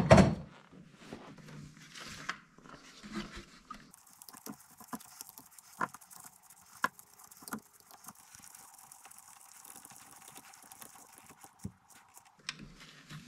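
Scattered light clicks and knocks of a screwdriver and gloved hands working on snowmobile carburetors, with one louder knock at the start.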